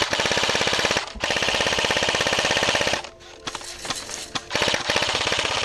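Airsoft gun firing on full auto: a rapid, even clatter of shots in a burst of about a second, then a longer burst of nearly two seconds, then shorter broken bursts.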